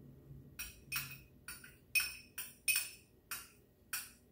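A metal spoon clinking and scraping against a small glass dish as smashed chilies are worked to scoop out the seeds. About nine sharp clinks at an uneven pace, each ringing briefly.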